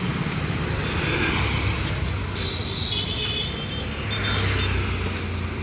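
Street traffic: motor vehicles running past on the road, a steady low engine rumble that swells about four seconds in.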